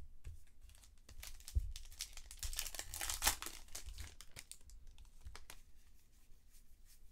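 Foil wrapper of a baseball card pack being torn open and crinkled, loudest about three seconds in, with cards clicking and sliding against each other as they are handled.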